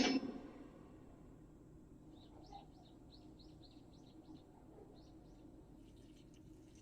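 Faint bird chirping: a quick run of short, high chirps starting about two seconds in, and a few more near the end, over a low steady hum.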